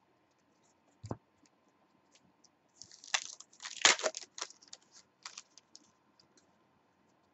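Foil trading-card pack being torn open and crinkled, loudest about four seconds in, with scattered light clicks of cards being handled after. A single soft thump about a second in.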